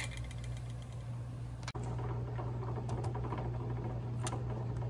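Steady low hum under the faint bubbling of a boiling water-bath canner, with a few light clicks.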